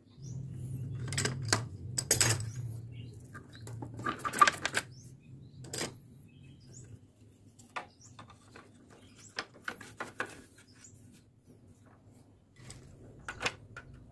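Steel of a hand saw being worked with metal tools: several short scraping strokes and sharp metallic clicks at uneven intervals, the loudest about two and four seconds in, over a low hum.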